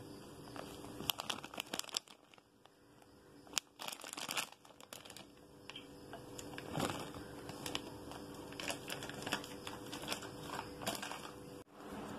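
Hands working dried cranberries into a crumbly flour-and-butter scone mix in a glass bowl: scattered crinkling and rustling, with a short pause about two seconds in, over a faint steady hum.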